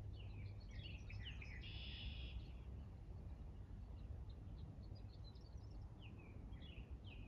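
Songbirds chirping and singing outdoors, busiest in the first couple of seconds with a buzzy trill about two seconds in, then sparser calls, over a faint low steady rumble.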